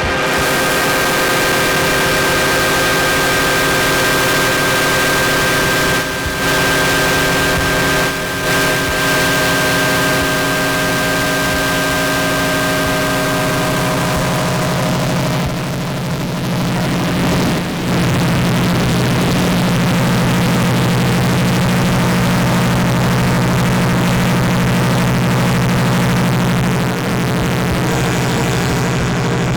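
Harsh noise music from a no-input mixer and effects pedals: a dense hiss over a stack of steady feedback tones, with brief dropouts about six and eight seconds in. Around the middle the higher tones fade away and a heavy, steady low drone under the noise takes over.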